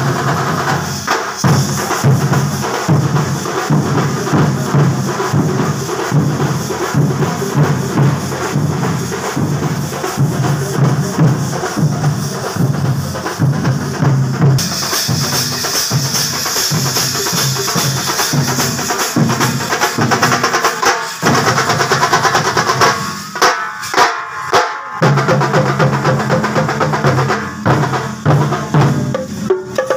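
A marching troupe beats large drums with sticks in a fast, steady rhythm. About three-quarters of the way through, the beat breaks into a few separate heavy strokes, then picks up again.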